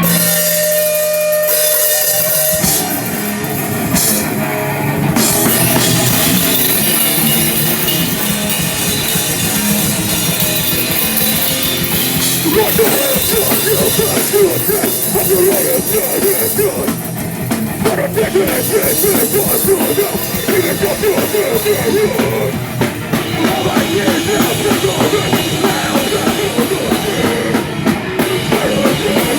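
Live rock band playing loud: electric guitar, bass and a drum kit, with the full band coming in about two and a half seconds in after a few sustained guitar notes.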